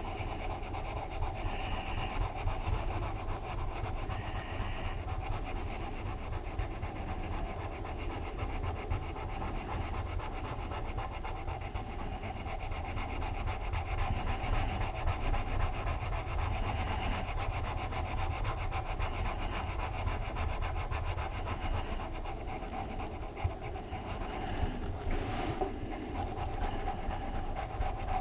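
Colored pencil rubbing back and forth on paper as light green is shaded in lightly, over a steady low hum. A single sharp tap comes near the end.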